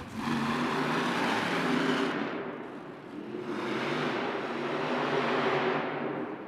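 Monster truck engines revving hard during a race, the sound swelling up twice with a dip between.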